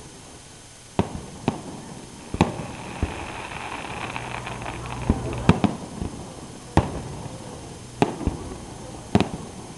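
Aerial fireworks shells bursting overhead in a string of sharp bangs, about ten of them, some coming in quick pairs.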